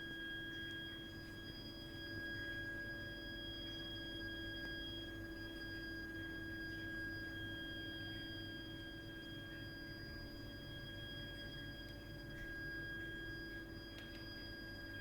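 Continuous high-pitched shrill whistle from a heating system's heat interface unit (HIU) and its pipework: a steady tone with overtones over a low hum. It is an abnormal fault noise that goes on for hours, even when heating and hot water are not in use.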